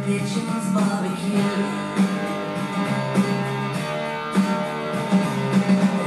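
Music with guitar playing.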